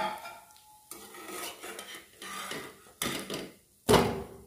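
A spatula scraping and knocking against a non-stick kadhai as a rava idli is loosened and turned over, in several separate strokes about a second apart, the loudest knock near the end. A sharp clink at the very start.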